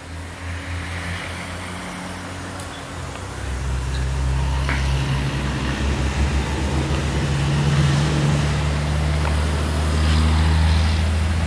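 An engine running steadily off-screen, a low hum that grows louder about three and a half seconds in, with a few faint clicks.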